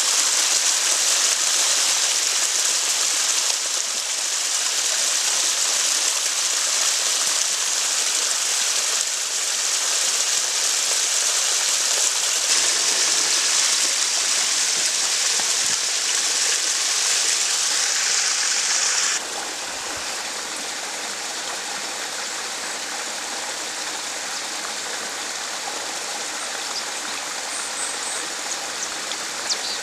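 Mountain stream of snowmelt water splashing and rushing over rocks in a steady, hissing flow. About 19 seconds in it drops to a quieter, softer flow.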